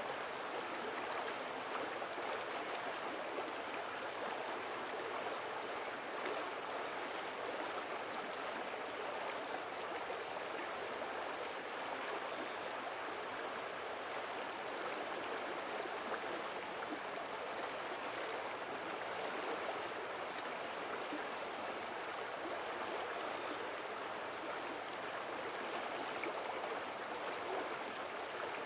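Steady rush of flowing creek water, with two brief, faint high chirps about seven and nineteen seconds in.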